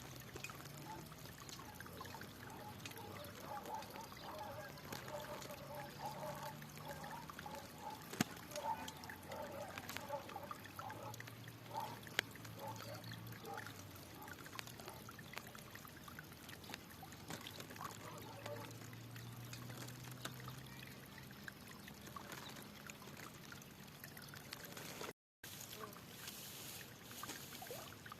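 Flowing water trickling and splashing steadily, with faint repeated calls in the first half and a brief total dropout a little before the end.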